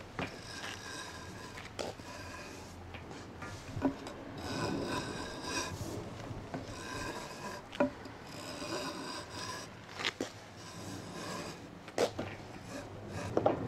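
Wooden hand plane shaving the corner of a wooden beam in repeated strokes, each a rasping scrape, about one every two seconds, with sharp knocks between strokes.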